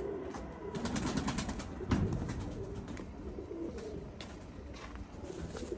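Domestic pigeons cooing low in the loft, with a sharp tap about two seconds in.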